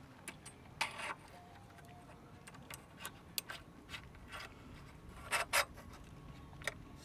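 Faint, scattered light clicks and taps of small bike parts and tools being handled, with brief louder noisy bursts about a second in and twice about five and a half seconds in.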